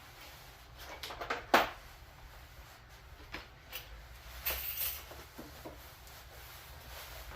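Scattered clicks, taps and a brief rubbing scrape from tools and lathe parts being handled, with one sharp knock about one and a half seconds in.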